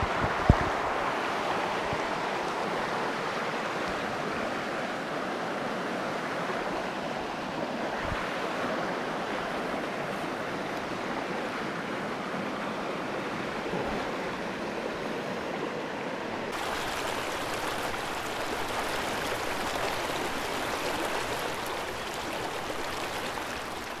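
A rocky woodland stream rushing steadily over stones: a continuous, even rush of water. A single brief knock sounds about half a second in.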